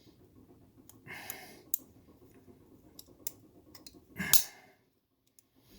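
Scattered clicks and knocks of metal parts and hand tools being handled while fitting a steering shaft, with one louder knock about four seconds in.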